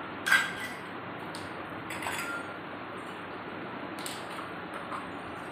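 A few light clinks and knocks of toy kitchen utensils, small steel cups and plastic pots being handled in play; the sharpest clink, about a third of a second in, rings briefly. A steady hiss runs underneath.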